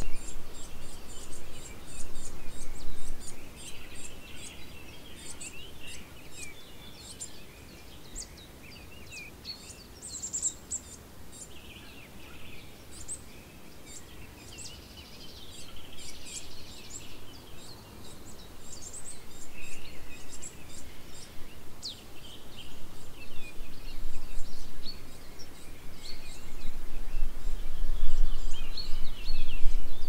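Mixed songbird chorus: many short chirps, trills and calls from several birds at once. Under it, wind gusts rumble on the recorder's microphones, strongest at the start and near the end.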